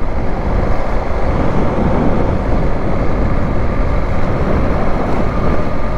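Motorcycle running at road speed, its engine rumble mixed with wind rushing over the camera microphone in a steady, unbroken noise.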